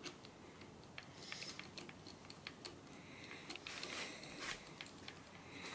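Faint, scattered metallic clicks and taps as nuts are guided down and threaded onto the ARP head studs of a Nissan RB26 cylinder head with a screwdriver and socket extension.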